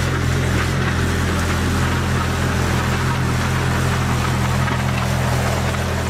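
Vintage Bristol 25 crawler dozer's engine running steadily while the machine pushes a load of pine needles and soil with its blade.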